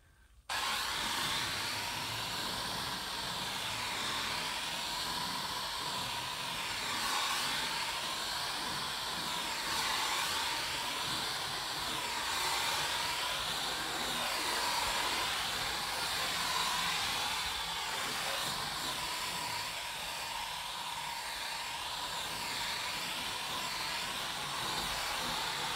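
Water jet from a garden-hose spray gun, its foam reservoir removed and the tap open wide, hissing steadily onto a car's bodywork as the car is rinsed. The spray starts about half a second in, and its hiss rises and falls gently every couple of seconds as it is swept over the panels.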